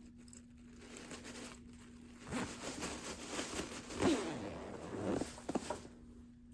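Zipper on a vintage leather jacket being pulled, starting about two seconds in: a string of short zipping strokes with quick rising and falling sweeps, lasting about three and a half seconds, over a faint steady hum.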